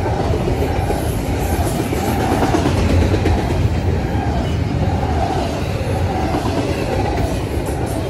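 Double-stack intermodal freight train's container well cars rolling past, a steady rumble of steel wheels on the rails with clickety-clack over the joints.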